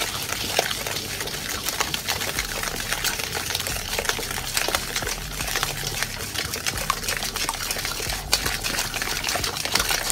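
A wooden spoon stirring and mashing soft butter into a wet mix of sugar and eggs in a bowl: steady wet squelching and scraping, with many small clicks of the spoon against the bowl.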